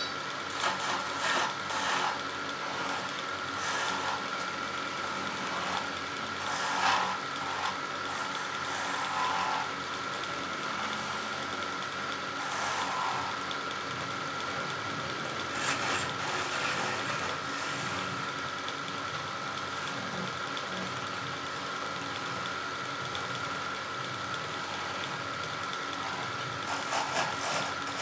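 Wood lathe spinning a small wooden spindle with a steady high hum, while a hand-held turning chisel cuts into the wood in irregular scraping bursts every few seconds, busiest near the end.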